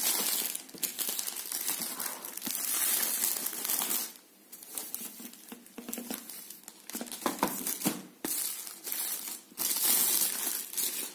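Clear plastic shrink-wrap crinkling and tearing as it is pulled off a cardboard box by hand, in irregular bursts with short pauses and a few sharper crackles.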